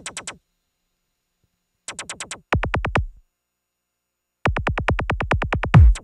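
Electronic drum-machine beat from a groovebox, playing in stop-start bursts: quick runs of clicky hits cut off abruptly with gaps of silence between them. Near the end a deep kick drum that drops in pitch comes in under the hits.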